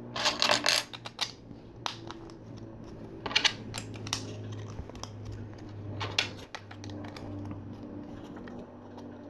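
Plastic LEGO pieces clicking and rattling as they are picked out and handled, with a cluster of clicks near the start and a few single clicks after. A low steady hum sits underneath.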